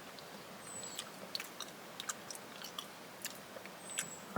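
Close-up chewing of raw meat: faint wet clicks and small crunches, a few a second.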